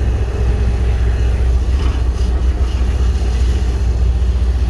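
Steady low rumble of a moving vehicle's engine and running noise.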